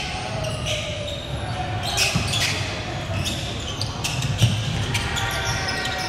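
Basketball game in a gym: a ball bouncing on the court with short high squeaks and background voices, in an echoing hall.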